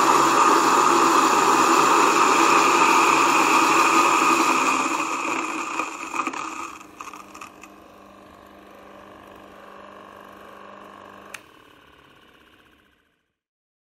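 Waldner BioTech Single electric grain mill grinding the last of a batch of rice into flour. The grinding noise fades over a couple of seconds as the hopper runs empty, and the mill then runs empty with a quieter hum. A single click comes near the end, after which the sound dies away.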